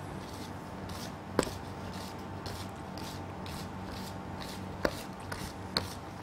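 Balloon whisk beating buttercream by hand in a stainless steel bowl: a soft swishing at about two strokes a second, with three sharp clicks of the wires against the metal bowl. A steady low hum runs underneath.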